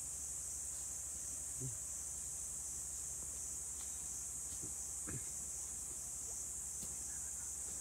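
Steady high-pitched drone of insects, with a few faint low thuds about two, four and a half and five seconds in.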